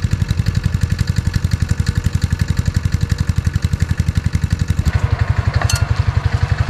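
A small engine running steadily with a fast, even chugging beat; a short sharp click sounds near the end.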